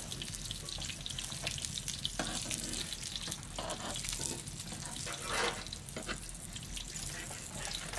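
Bolani frying in shallow oil in a wide metal pan over a wood fire: a steady sizzle and crackle, with now and then a brief scrape as forks move the breads in the pan.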